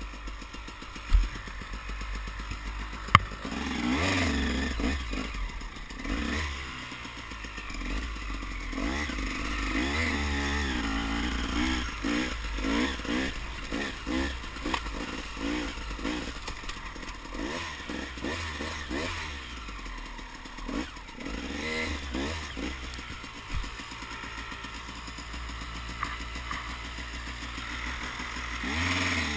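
Off-road dirt bike engine running under way, its pitch rising and falling again and again as the throttle is opened and closed. Two sharp knocks stand out in the first few seconds.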